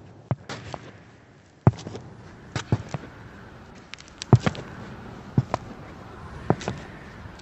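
Sharp knocks, mostly in quick pairs, repeating roughly once a second over a faint background hiss.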